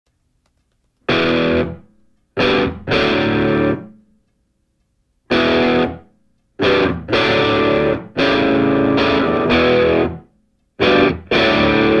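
Music: distorted electric guitar chords struck one after another, each fading within about a second, with short silences between them.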